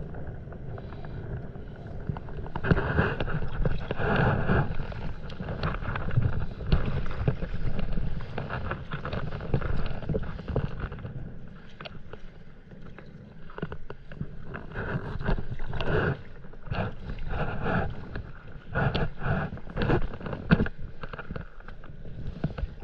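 Sea water splashing and lapping against paddleboards, with irregular knocks and splashes from gear and paddle handling on the boards, louder in stretches.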